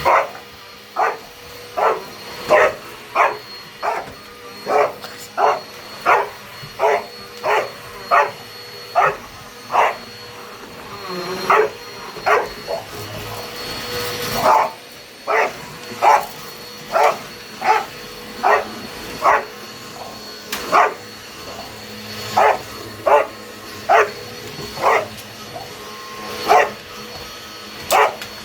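Dog barking over and over at a running vacuum cleaner, about one bark every three-quarters of a second with a short pause partway through, over the vacuum's steady hum.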